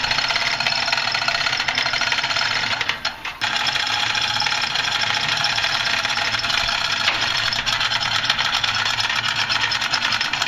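Air-powered hoist running with a loud, steady, rapid pneumatic rattle as it lowers a locomotive cylinder head into place. It cuts out briefly about three seconds in, then starts again.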